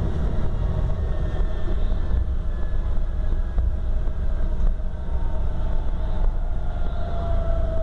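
Mercedes-Benz O-500RS coach's diesel engine running under way, heard on board: a steady low rumble with a faint whine that slowly drops in pitch.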